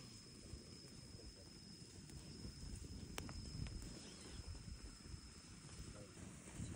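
A faint, steady high-pitched insect trill over quiet outdoor background noise, stopping about six seconds in, with a single sharp click about three seconds in.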